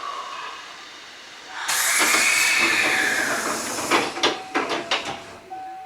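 A sudden loud blast of compressed air hissing from the Hankyu 8000 series train's pneumatic equipment, with a tone that rises and falls inside it, then several sharp clunks.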